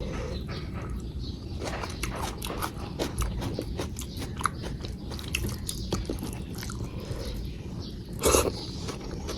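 Close-up eating sounds of a meal of dal, rice, potato curry and salad: a person chewing and biting, with many small wet clicks and crunches in an irregular pattern. A louder, brief crunch or slurp comes about eight seconds in.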